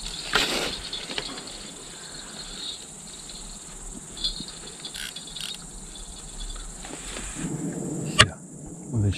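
Crickets chirping in a steady high-pitched trill, with softer chirps underneath. Near the end come some rustling and then a single sharp click, the loudest sound.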